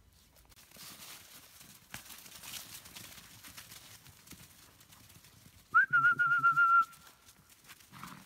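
A person whistling one loud, close, warbling note that lasts about a second, starting with a quick upward flick in pitch.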